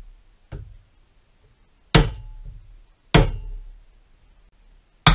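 A mallet strikes a wooden block laid over a new driveshaft CV joint, tapping its combined metal-rubber gaiter cap down onto the bearing casing. There is a faint knock about half a second in, then three solid knocks spread over the next few seconds.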